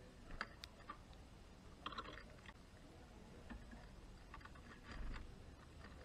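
Small birds, a European greenfinch among them, pecking and cracking sunflower seeds at a wooden feeder tray: faint, scattered clicks and taps, with a cluster about two seconds in and more around four to five seconds.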